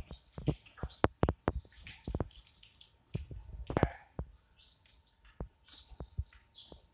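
Irregular sharp taps and small wet splashes: a freshly hosed sheep's hooves stepping on wet concrete, with water dripping.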